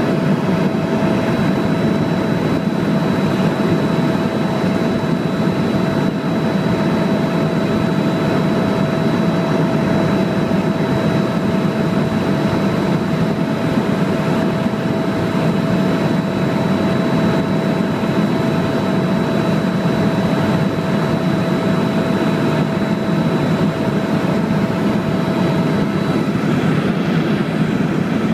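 Helicopter in flight heard from inside the cabin: a loud, steady drone with a constant whine above it. Part of the whine fades out near the end.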